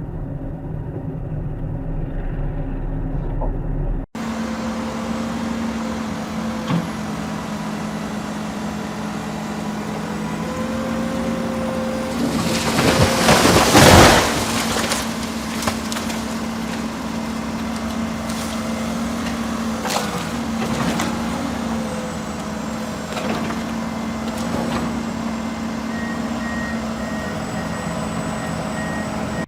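Heavy vehicle engine running steadily, with a loud noisy burst lasting about two seconds near the middle.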